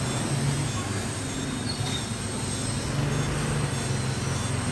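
Steady low rumble and hum of background noise, swelling and easing a little, with a faint constant high-pitched whine.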